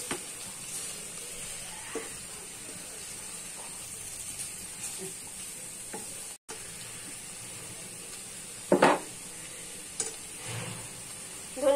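Potato, cauliflower and tomato bhaji sizzling steadily as it fries in a pan while a spatula stirs it, with a few light clicks. A short, loud knock of the utensil against the pan about nine seconds in.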